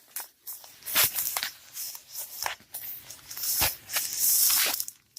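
Plastic bag around a diamond painting canvas crinkling and rustling as it is handled and opened. There are a few sharp knocks and a longer rustle about four seconds in.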